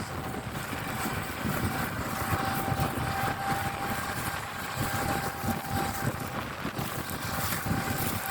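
Claas Lexion 8900 combine harvester running while unloading grain, heard from inside the cab: a steady engine and machinery rumble with a constant whine.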